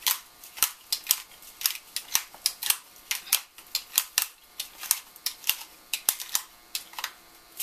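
Hand-twisted pepper grinder cracking black peppercorns: a quick, uneven run of sharp clicks, several a second, that stops near the end.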